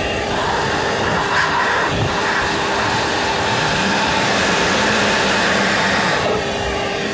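Small Bauer shop vac running in blower (exhaust) mode, a steady motor whine under a loud rush of air. Its hose is forcing leftover water out of a hot tub's pump and jet plumbing so it cannot freeze over the winter.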